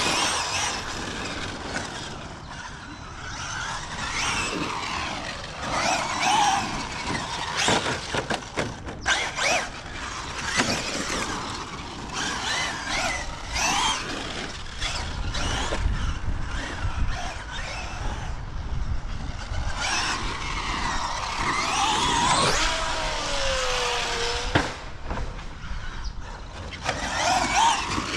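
Traxxas Maxx Slash RC short course truck running on 6S, its brushless electric motor and drivetrain whining up and down in pitch as it accelerates and slows across the dirt track. Scattered clicks and knocks come from the tyres and chassis on the dirt.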